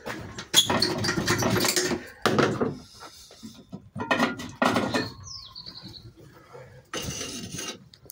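Handling noise of pulling a pressure-washer hose off a truck-mounted hose reel: several irregular clattering, rustling bursts with metallic clinks from the reel and the hose's metal fittings.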